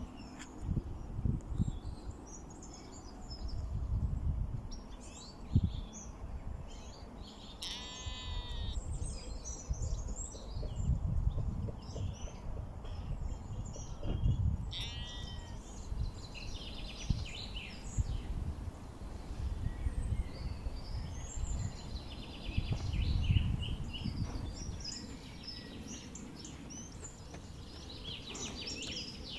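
Sheep bleating twice, about eight seconds in and again at about fourteen seconds, each call high-pitched and quavering. Small birds chirp all through, over a gusty low rumble of wind on the microphone.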